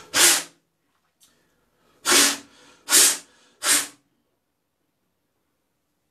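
Terry towel rubbed over a freshly shaved face: four short rustling strokes, one right at the start and three more in quick succession about two seconds in.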